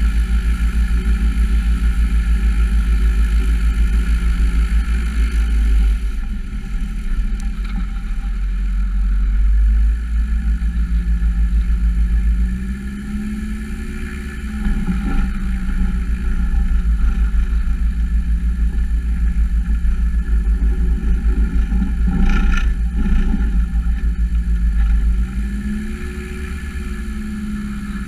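Diamond DA-40 NG's Austro AE300 four-cylinder turbo-diesel engine and propeller running at low taxi power. The engine note drops and then rises again twice as the power is adjusted.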